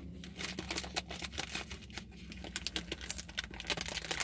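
Plastic snack-bar wrapper crinkling as the bar is handled, a quick irregular run of sharp crackles starting about half a second in.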